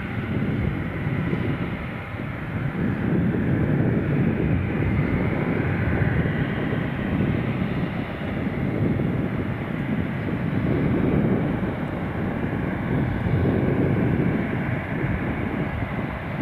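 Airbus A319-112's CFM56 jet engines at taxi power, a steady low rumble that swells and eases a little.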